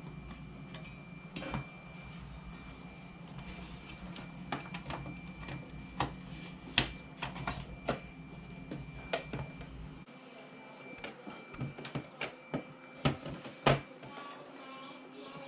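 Irregular clicks and taps of small parts being handled while an Xbox 360 disc drive is worked on by hand, over a steady background hum whose low rumble stops about ten seconds in.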